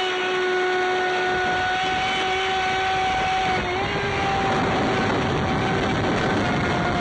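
Traxxas Spartan RC boat's brushless electric motor whining steadily at speed, with water rushing along the hull. The whine dips in pitch briefly a little past the middle, then picks up again.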